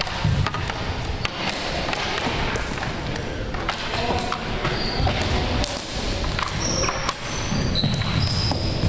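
Floor hockey sticks and a plastic ball clacking on a wooden gym floor during warmup shots, scattered sharp hits echoing in the hall, with a few short high squeaks.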